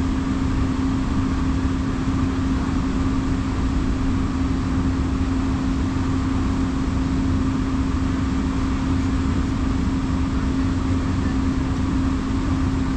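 Amtrak passenger train standing at the platform and idling: a steady, even hum with one constant tone over a low rumble, unchanging throughout.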